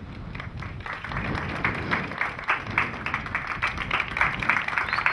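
Applause from a modest number of people clapping, with irregular overlapping claps that begin about half a second in and grow louder about a second in.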